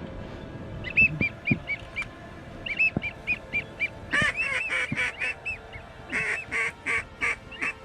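Duck calling: a quick string of short, rising-and-falling whistled notes starting about a second in, then louder, fuller calls in two clusters near the middle and toward the end, with wigeon coming in to the decoys.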